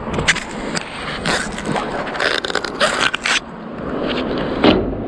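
A series of short, rough scrapes and rustles, about eight, unevenly spaced, with a heavier one near the end.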